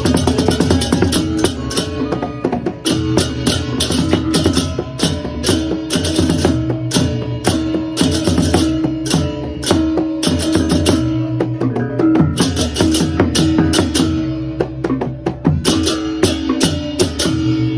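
Balinese baleganjur gamelan playing: rapid, even strokes of clashing cymbals over drums and held, ringing gong tones.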